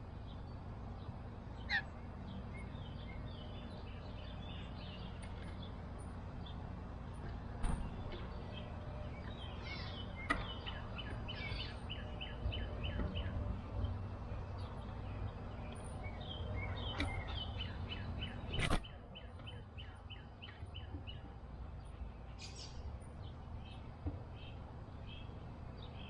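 Backyard wild birds chirping, with short high calls scattered throughout and a run of quick, evenly spaced chips about two-thirds of the way through, over a steady low outdoor rumble. A few sharp knocks stand out, the loudest about 19 seconds in.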